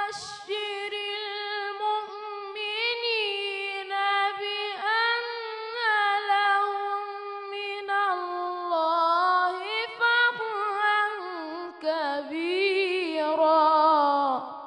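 A boy's unbroken voice in melodic Quran recitation (tajwid), holding one long ornamented phrase with wavering runs. The pitch sinks lower near the end and the phrase stops.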